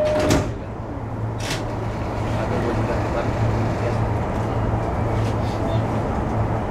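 E233 series electric train standing at the platform, heard from the cab: a steady low hum, with a short hiss at the very start and a sharp click about a second and a half in.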